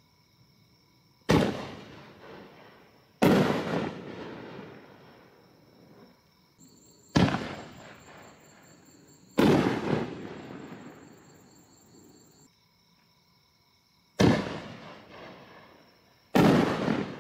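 Three 4-inch canister firework shells fired from a mortar tube, one after another. Each gives a sharp report at launch and a second loud bang about two seconds later as the shell bursts, and each bang rumbles away over a second or two.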